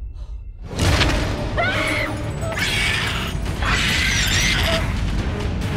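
Dramatic film-score music with sound effects: a sudden loud hit about a second in, then creaking and short high squeals that rise and fall over the music.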